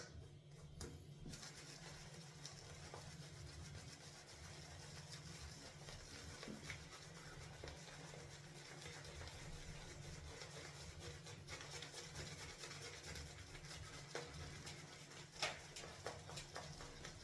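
Semogue 830 boar-bristle shaving brush worked in a tub of shaving soap: a faint, continuous rubbing and scratching of bristles as the first lather is built.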